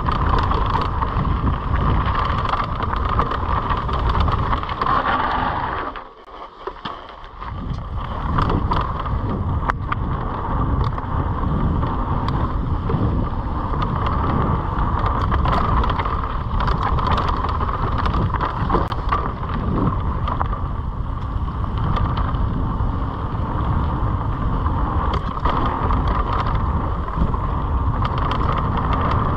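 Mountain bike ridden fast down a dirt flow trail: wind buffeting the rider's camera microphone over a steady rumble of tyres on dirt, with frequent clicks and rattles from the bike. About six seconds in the noise drops off suddenly for a second and a half, then comes back.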